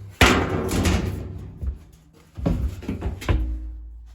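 Several loud clanks and thuds of the dryer's sheet-metal cabinet panels being handled during disassembly, the loudest about a quarter second in, with a ringing tail after each knock.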